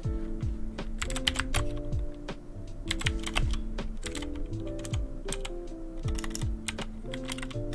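Irregular bursts of key presses on a mechanical keyboard with clicky blue switches, over background music with a steady beat.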